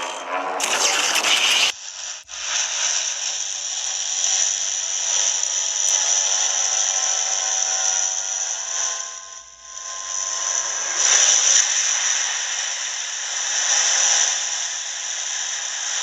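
Homemade sound effect: a short bright burst that cuts off abruptly, then a steady crackling hiss that dips briefly about halfway through and swells again.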